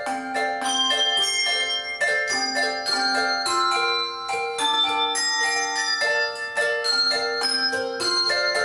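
Instrumental music: a melody of struck, bell-like notes over chords, several notes a second, with no singing.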